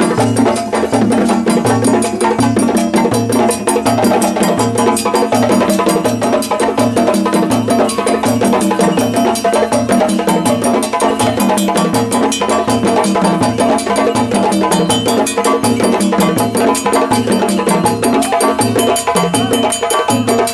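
West African drum ensemble playing a Malinke-style rhythm: djembes slapped by hand over rope-tuned dundun bass drums struck with sticks. A steady, repeating low drum pattern runs under a dense, fast layer of sharp slaps and strokes.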